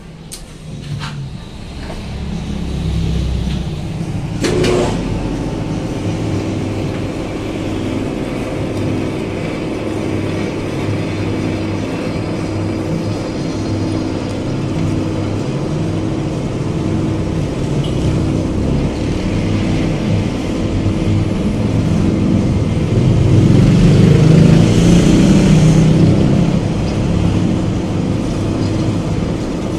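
Metal lathe running, its spindle turning a steel shaft with a steady machine hum. There is a sharp clank about four and a half seconds in, and the sound grows louder and harsher for a few seconds past the three-quarter mark.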